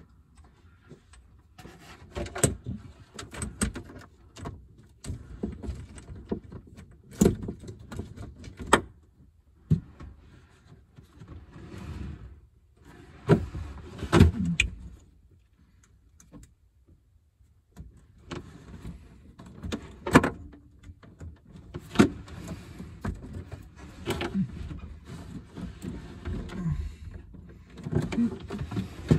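Irregular clicks, knocks and rustling from hands handling wiring and hardware in the cramped space under a boat's dash, with a few louder clunks and a short lull about two-thirds of the way through.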